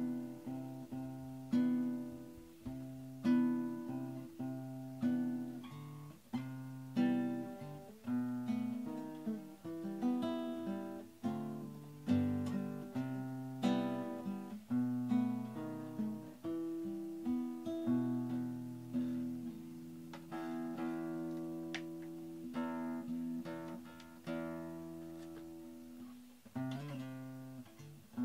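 Background music: an acoustic guitar playing plucked notes and chords, each note struck and dying away, one after another at an easy pace.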